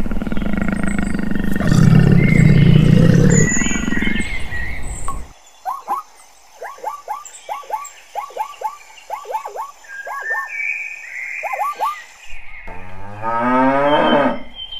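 A run of different animal calls. First a loud, low rumbling call for about five seconds, then a quick series of short, falling chirps, then a long lowing moo like a cow's that starts near the end.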